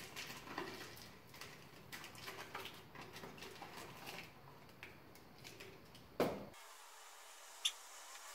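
Rustling of packaging and plastic sheeting with many small clicks as a new oil filter is unwrapped and handled. A single thump comes about six seconds in, and a sharp click about a second later.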